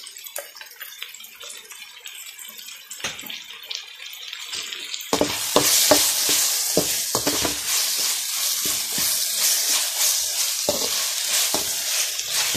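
Chopped onions and curry leaves frying in oil in a metal pot, with a sizzle. About five seconds in, a perforated steel ladle starts stirring a freshly added paste into them: the sizzle gets louder, with quick scraping strokes of the ladle against the pot.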